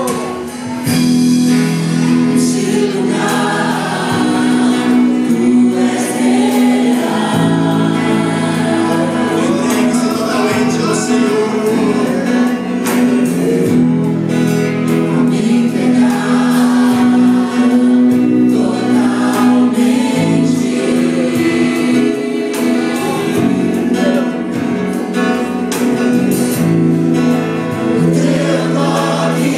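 Live church worship band and a group of singers performing a Portuguese gospel worship song, with voices singing together over held chords.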